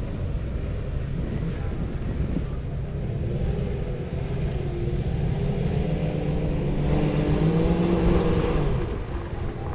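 A 4x4's engine running, revving higher and louder about seven seconds in, then easing back.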